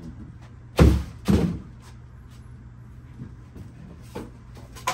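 Two heavy thumps about half a second apart, a second in, followed by a few light knocks.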